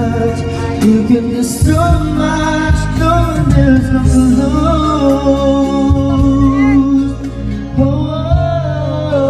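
Background music: a song with a sung vocal line, its notes held and sliding between pitches, over a steady instrumental backing.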